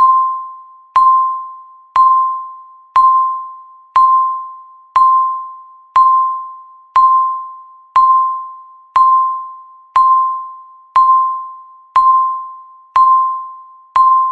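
Countdown timer beeps: a single clear tone struck once every second, each fading away before the next.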